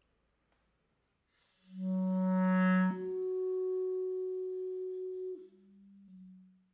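Three held musical notes on an instrument, steady in pitch with no wavering. A loud low note jumps up about an octave, is held for a couple of seconds, then drops back to the low note, much quieter, and fades out.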